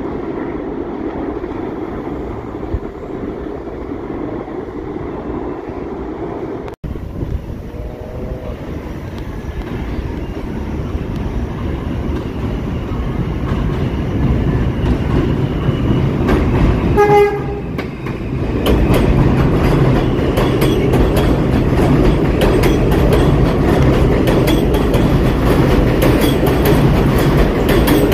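A New York City Subway R160 train, not in service, running through an elevated station without stopping: a short horn blast about two-thirds of the way in, then a louder wheel clatter over the rail joints as the cars pass close by. Before that, a train runs along the elevated steel structure farther off.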